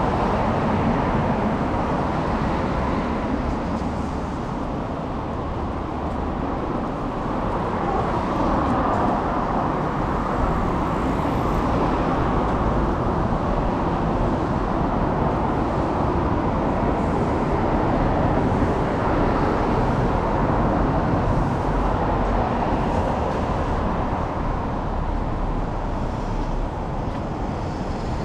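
Steady road traffic noise: cars running past on a city street, one continuous rumble with no single vehicle standing out.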